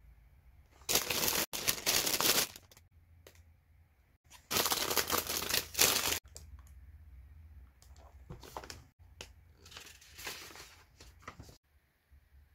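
Crinkling of cosmetics packaging being handled: two loud spells of about a second and a half each, with a fainter spell near the end and a few small clicks between.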